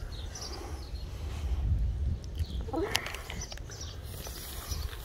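Small birds chirping, with one short call rising in pitch about three seconds in, over a steady low rumble.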